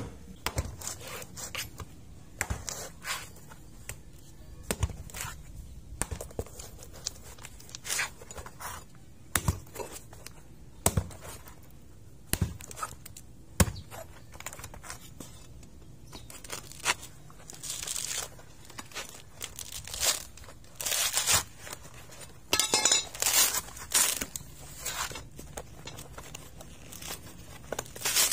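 A machete blade chopping into a whole coconut's fibrous husk, a series of sharp separate strikes. Later the husk is torn away by hand in longer rasping pulls of the fibres.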